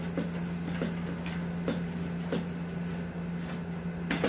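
Pencil eraser rubbing on paper in short, irregular strokes, over a steady low electrical hum.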